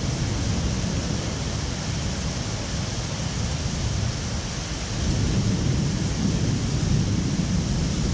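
Low rumble of distant thunder over a steady hiss of rain, the rumble swelling about five seconds in.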